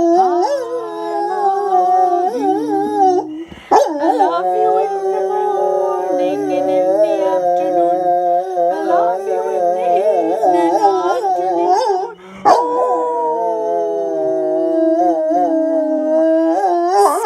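Lab–Great Dane mix dog howling along to a song in long, wavering howls that break off briefly about three and a half seconds in and again about twelve seconds in. After the second break the howl slides slowly downward in pitch.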